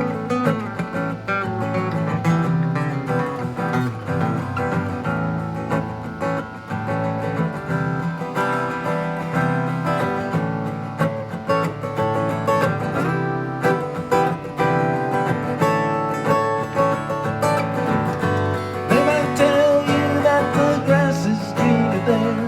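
Instrumental break of a live song: acoustic guitar strumming along with other instruments, with no singing.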